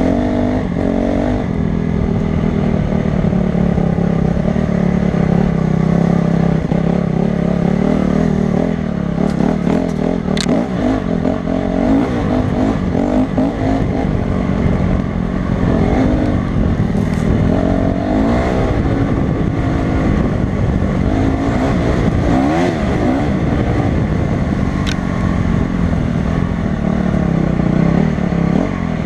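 Honda CRF250 dirt bike engine running under load while riding, its revs rising and falling again and again as the rider opens and eases the throttle. A sharp click cuts through about ten seconds in and again about 25 seconds in.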